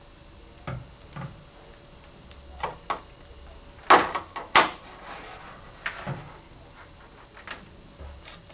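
Scattered light knocks and clatters of cleaning equipment and a computer mouse being handled and set down on a desk, about eight in all, the loudest two close together about four seconds in.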